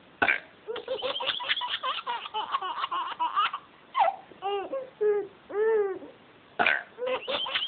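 Baby laughing in quick bursts of giggles, broken around the middle by a few drawn-out calls that rise and fall in pitch.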